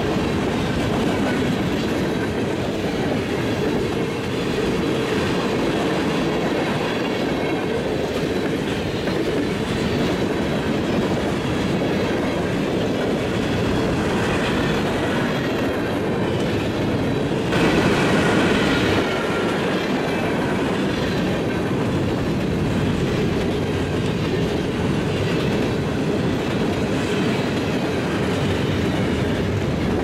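Freight cars of a long mixed freight train rolling past, wheels clattering over the rails in a steady rumble, with a brief louder, higher-pitched stretch a little over halfway through.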